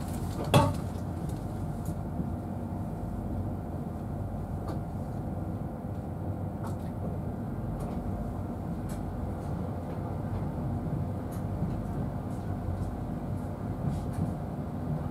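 Steady low rumble and hum inside an InterCity 225 passenger coach as the train runs. A sharp knock about half a second in, with a few faint clicks later.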